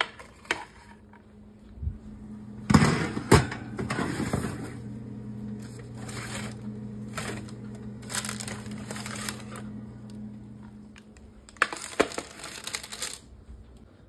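Metal baking sheets being handled at the oven: clanks and scrapes as trays come off the oven rack and are set down on the counter, over a steady low hum that stops about eleven seconds in. The loudest clanks come about three seconds in and again near the end.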